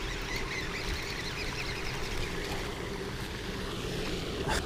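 Steady rushing noise of wind and water while a hooked largemouth bass is fought and reeled in. A sharp click comes about four and a half seconds in.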